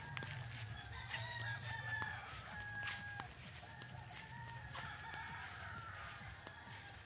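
A rooster crowing, with a second, weaker crow a few seconds later, over rustling and scattered clicks.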